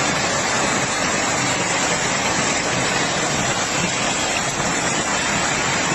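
Heavy downpour: a steady, dense hiss.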